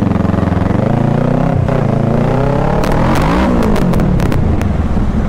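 Kawasaki motorcycle engine running and revving, its pitch climbing and dropping about halfway through, with a few sharp clicks in the second half.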